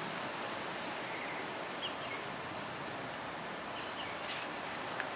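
Steady background hiss with no distinct event, and a few faint short chirps about two seconds in.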